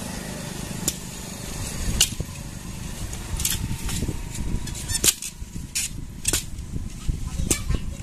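A curved machete blade striking and cutting a thin pole by hand: several sharp knocks at irregular intervals, the loudest about two and five seconds in, over a steady low rumble.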